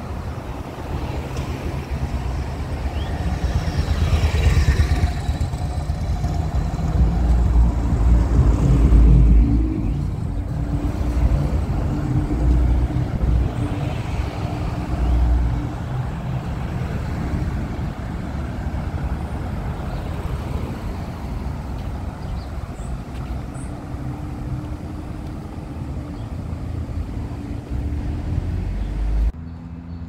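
Road traffic on a busy town street: cars driving past close by, with engine hum and tyre noise swelling as vehicles pass, loudest around four and nine seconds in. The sound drops off suddenly just before the end.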